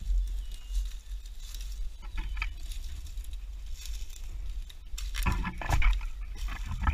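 Footsteps crunching through dry leaf litter and brush, with twigs and branches rustling and scraping against clothing and a gloved hand, in irregular clusters that are loudest a little after five seconds in, over a steady low rumble on the microphone.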